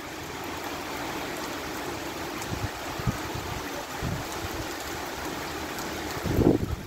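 Steady rain falling, an even hiss of rainfall, with a brief louder low rumble near the end.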